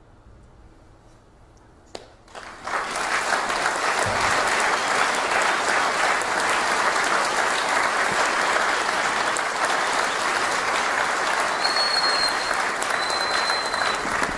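Near silence for about two seconds, then an audience starts applauding and keeps clapping steadily and loudly.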